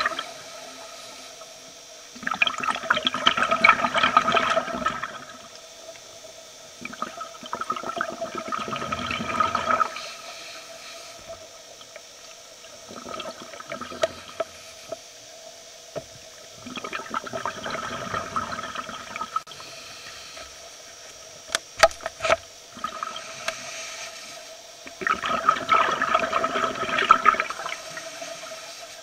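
Scuba breathing through a regulator heard underwater: about five bursts of exhaled bubbles, each two to three seconds long, every few seconds, with quieter stretches between them. A few sharp clicks come about three-quarters of the way through.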